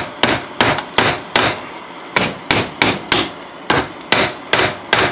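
Ball-peen hammer rapidly striking a rusty, seized brake bleeder screw in an old brake caliper, about three sharp metal blows a second in short runs. The blows are meant to shock the heated, rust-seized threads loose.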